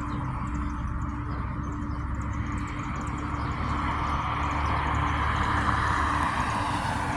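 Steady outdoor background noise: a low rumble with a broad hiss that swells a little about five to six seconds in. No church bell is ringing yet.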